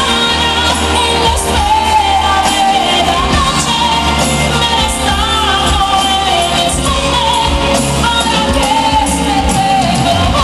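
A female pop singer singing a melody of held, gliding notes over a full pop band with bass and a steady drum beat.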